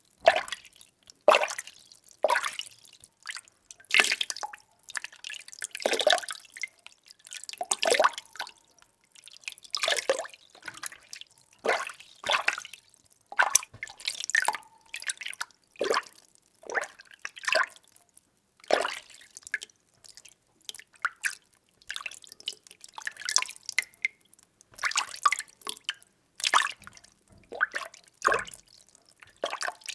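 Water being stirred in a container: a string of short sloshing swishes and splashes, about one a second, with brief gaps between strokes.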